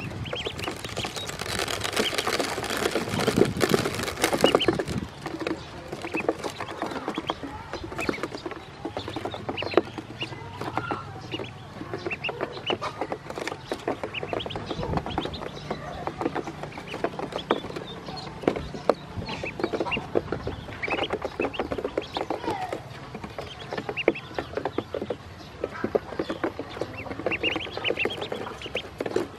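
Ducklings peeping as they peck and dabble at feed on a hard plastic floor: short high chirps over a rapid clatter of bill taps, busiest and loudest in the first few seconds.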